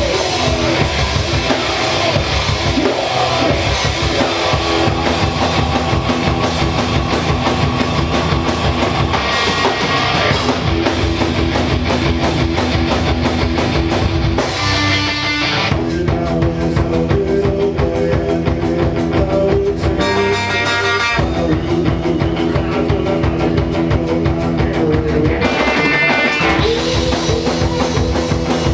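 Live rock band playing loudly, with guitar over a drum kit.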